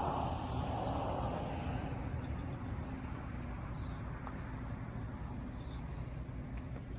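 The diesel engine of a Sullair 185DPQ towable air compressor running at a steady idle, a low even hum. A rushing noise fades away over the first two seconds.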